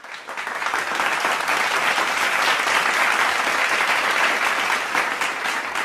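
Applause: a crowd clapping steadily, coming in within the first second.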